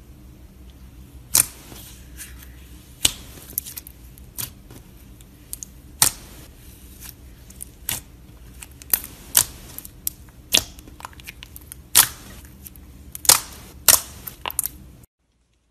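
Hands pressing and poking clear glitter slime, giving sharp wet pops and clicks as pockets of air burst, irregular and roughly one a second, over a faint low hum. The sound stops suddenly shortly before the end.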